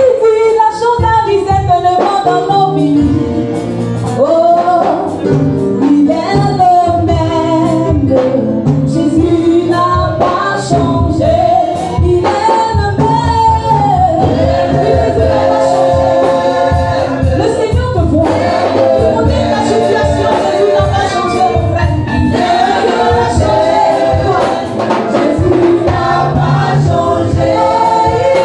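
Live gospel praise song: a group of women singing together into microphones over a steady drum beat, amplified through a PA system.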